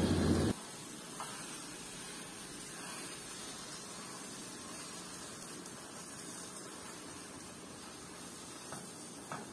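A short loud rumble of the camera being handled, cutting off half a second in, then a steady hiss from the gas stove burner heating a frying pan of tapioca. A light tap of a spoon in the pan comes about a second in and again near the end.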